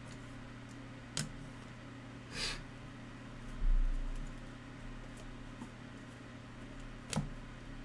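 Trading cards being handled in the hands: a sharp click, a brief swish of cards sliding, a dull thump about four seconds in, and another click near the end. A steady low hum runs underneath.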